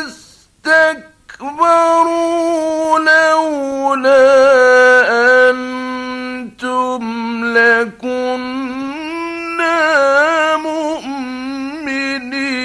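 A man's voice reciting the Quran in the melodic mujawwad style, drawing words out into long held notes with ornamented turns of pitch. There is a short pause for breath about a second in.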